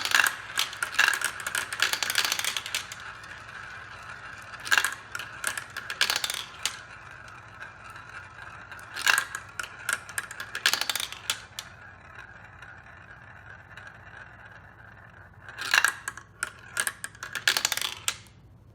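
Marbles rolling along a marble run track: a steady rolling rattle that slowly fades, with clusters of sharp clicks and clacks as the marbles strike and drop through track pieces, the last cluster near the end.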